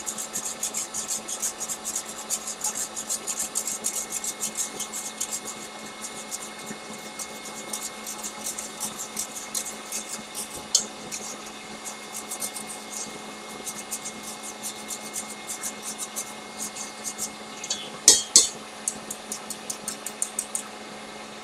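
Almond flour and powdered sugar being worked through a fine-mesh metal sieve over a stainless steel bowl, making a fast scratchy ticking. The ticking is dense at first and thins out, with a brief louder clatter about three-quarters of the way through, over a faint steady hum.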